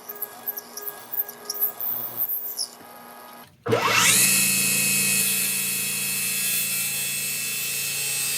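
Light scraping and clicks of hand work on wood, then about halfway through an electric power tool spins up with a rising whine and runs steadily.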